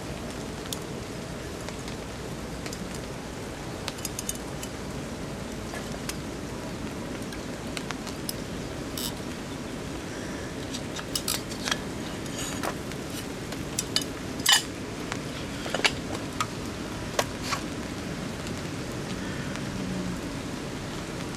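Metal camp cookware and utensils clinking and tapping now and then, with the sharpest knock about two-thirds of the way through, over a steady hiss of rain.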